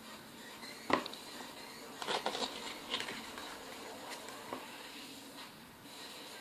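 Handling of a CD album's packaging: a few light clicks, taps and rustles as the box and its contents are handled, with quiet gaps between them.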